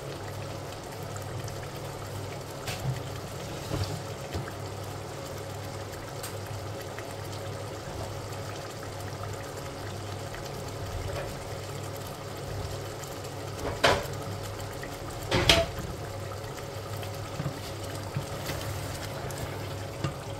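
Meat cooking in masala in a steel pot, bubbling steadily as it is fried down to the stage where the ghee separates, over a faint low hum. Two sharp knocks, about a second and a half apart, come in the second half.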